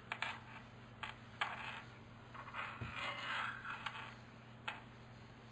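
Faint rubbing of a microfibre cleaning cloth over a camera lens, with a few light clicks and knocks as the lens is handled.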